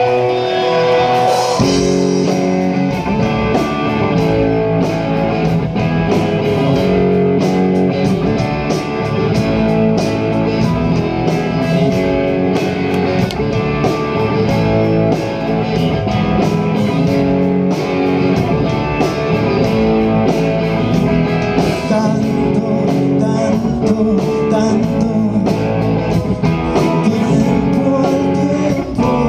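A rock band playing live on electric guitar, bass guitar and drums. After a held opening, the drums and the full band come in about a second and a half in.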